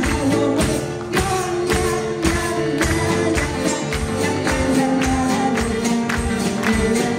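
Live performance of a Turkish song: an instrumental ensemble with a steady percussion beat and a woman's voice singing.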